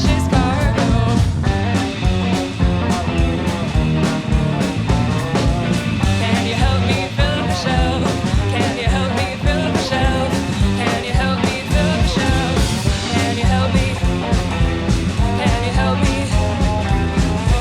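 Rock band playing live with a steady drum beat, bass, electric guitar and viola.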